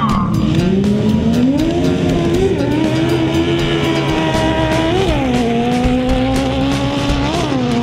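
Sport ATV engines accelerating hard off the start line, the pitch climbing steadily, then rising and dropping at upshifts about five and seven seconds in. Rock music plays underneath.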